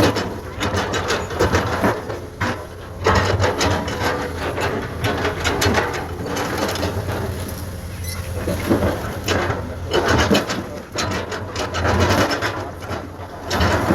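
Komatsu PC210 hydraulic excavator at work: its diesel engine drones steadily while the bucket scrapes and clatters through soil and rock again and again.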